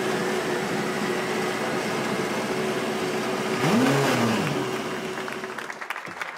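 BMW M8 GTE race car's twin-turbo V8 running at idle on its first-ever fire-up, with one throttle blip about four seconds in that rises and falls in pitch. The engine then dies away near the end and hand clapping starts.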